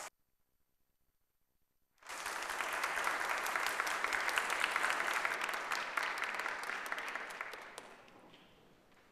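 Audience applauding. After about two seconds of silence the clapping starts at full strength, then fades away near the end.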